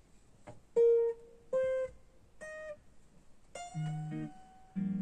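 Electric guitar picked in single notes: three short, separate notes about a second apart, the first two the loudest, then a held higher note with lower notes sounding under it near the end.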